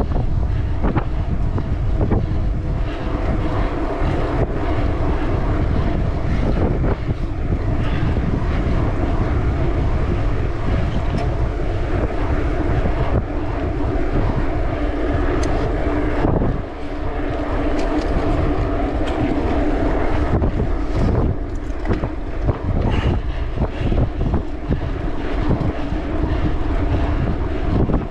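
Mountain bike riding along a trail at speed, heard from the rider's camera: wind rushing over the microphone, a steady drone from the tyres and bike, and scattered knocks and rattles over bumps.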